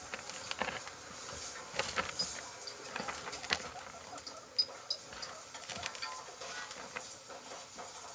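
Guinea pigs moving about in cage bedding: irregular rustling and scratching with scattered clicks, and a few short, faint high peeps in the middle.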